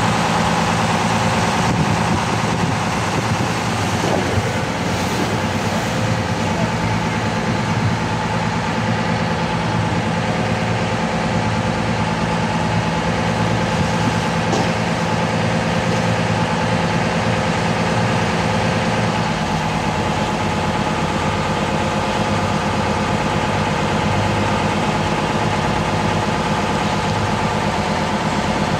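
Small harbour ferry's engine running steadily, heard from on board. The low rumble gets stronger about two-thirds of the way through.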